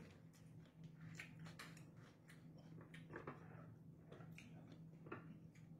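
Near silence: faint chewing and scattered light clicks of plastic forks against plastic plates, over a steady low hum.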